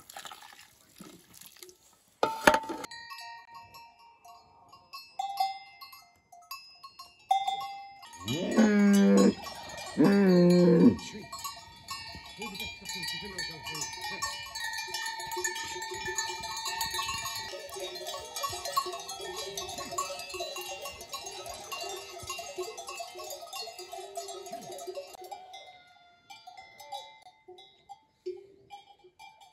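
Cowbells on grazing cattle clanking and ringing as the animals move, dense for much of the time and sparser near the end. Two loud calls from the cattle come about eight and ten seconds in, each about a second long and dropping in pitch.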